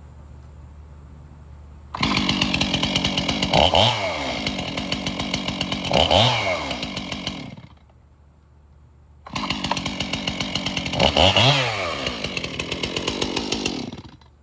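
Small gas engine of a handheld yard tool running in two short spells. Each spell begins suddenly and is revved up and back down once or twice before it stops. The engine starts and runs cleanly after sitting out in a storm.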